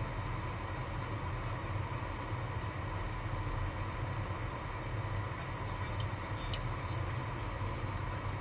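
Steady rushing airflow and ventilation noise on an airliner's flight deck in flight, with a low hum and a faint steady tone. A couple of faint clicks come about six seconds in.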